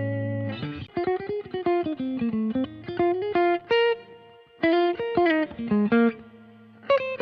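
Baum Backwing electric guitar played through an amp. A held chord rings out at the start, then runs of quickly picked single notes follow in short phrases with brief pauses between them.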